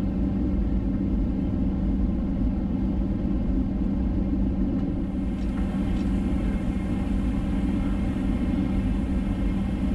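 Steady airliner cabin noise: the drone of the jet engines and rushing air, with a constant low hum, heard from inside the cabin as the plane descends.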